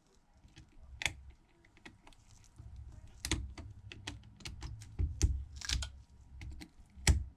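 Irregular sharp little clicks and taps of metal tweezers working the tiny Phillips screws out of a Samsung Galaxy Note 9's back cover plate. The loudest click comes near the end.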